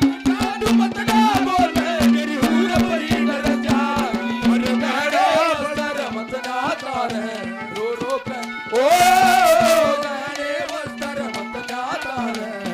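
Haryanvi ragni folk music played live: quick hand-drum strokes over a steady held drone, with a wavering melody line on top. A louder, brighter passage comes about nine seconds in.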